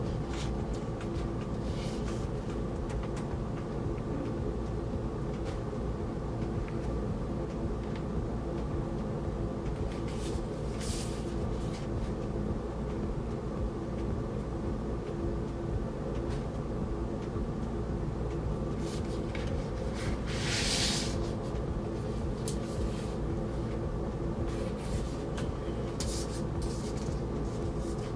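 Steady low background hum throughout, with short rustles and swishes of paper and card as booklet pages are turned and record sleeves are handled; the longest and loudest rustle comes about 20 seconds in.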